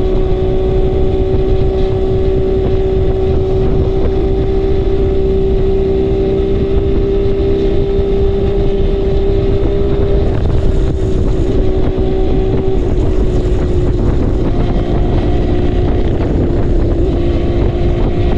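Kawasaki KH250 two-stroke triple engine running steadily at cruising revs, heard from the rider's seat over heavy wind rush on the microphone. The engine note dips slightly about ten seconds in.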